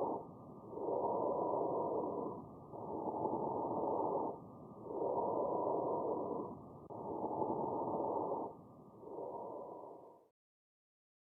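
Recorded normal bronchial breath sounds as heard on lung auscultation. Rushing breath phases alternate, each about a second and a half long, with short pauses between them. The sample cuts off abruptly about ten seconds in.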